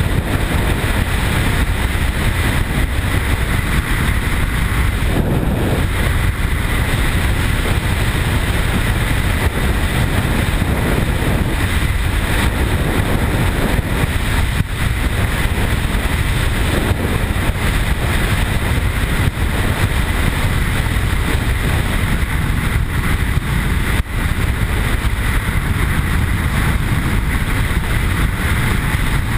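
Steady rush of wind noise on a motorcycle-mounted camera mixed with the BMW R1150 GS's flat-twin boxer engine running at a steady highway cruise.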